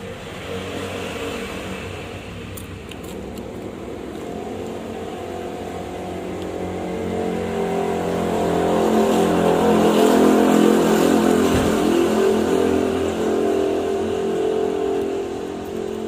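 A motor vehicle's engine running close by, growing louder to a peak about ten seconds in and then fading away.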